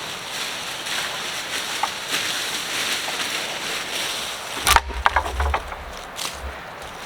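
Dead wood being broken up: scratchy rustling, then a sharp crack with a thud about two-thirds of the way in, followed by a quick run of splintering snaps.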